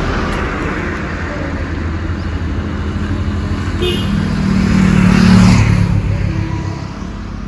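A motor vehicle passing close by: its engine and road noise build to a peak about five seconds in, then fade.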